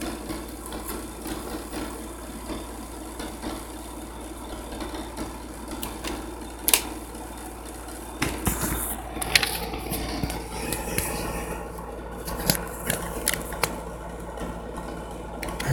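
Steady low background hum with a sharp click about seven seconds in. From about eight seconds in come repeated knocks, taps and rubbing: a phone being handled and turned around in the hand.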